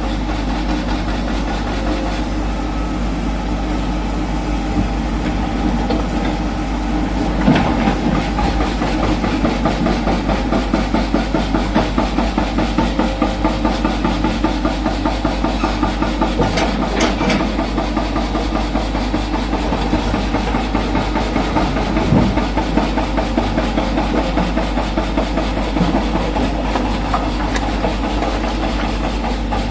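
Hitachi Zaxis 210F hydraulic excavator's diesel engine running steadily under load as it works, pulsing rapidly through the middle stretch. A few sharp knocks of the steel bucket striking rock come through it.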